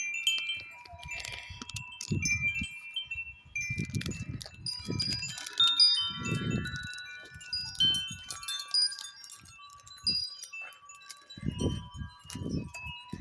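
A collection of hanging wind chimes of many different pitches ringing in gusty wind, with many overlapping, ringing tones. Gusts of wind rumble on the microphone several times.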